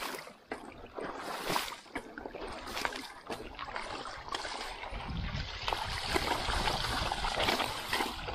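Shallow, rocky river water splashing and trickling around a mountain bike being ridden through it, with scattered clicks and knocks from stones and the bike. A low rumble comes in about five seconds in.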